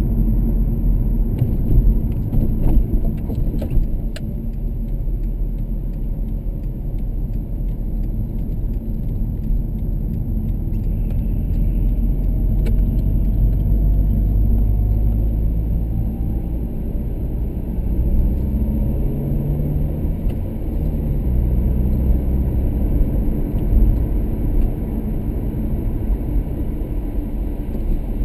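Car driving, heard from inside the cabin: a steady low rumble of engine and road noise, with a few light clicks about two to four seconds in and the engine note shifting about two-thirds of the way through.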